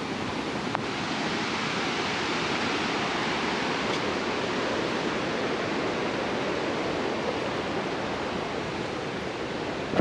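Steady rushing of a waterfall's falling water, heard from the path above it.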